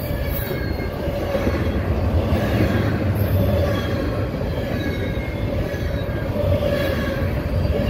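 Freight train cars rolling steadily past: a continuous rumble of wheels on rail, with a steady faint squeal from the wheels.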